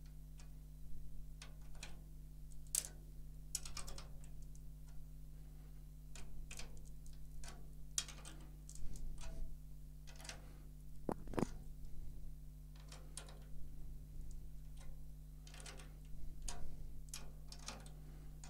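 Drum key turning the tension rods of a snare drum a quarter turn at a time while tightening a new batter head: a scatter of small, irregular metal clicks and ticks.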